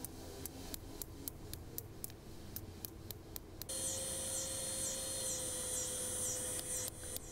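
Faint, light hammer blows on a thin steel file resting on a stone used as an anvil, at an even rate of about four a second. About halfway through they stop, and a high, pulsing trill with a steady hum takes over.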